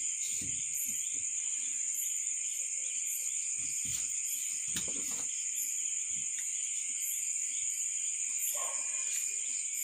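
Steady high-pitched chirring of crickets, with a few soft low thuds about half a second, four and five seconds in, fitting feet landing on the floor during martial-arts footwork.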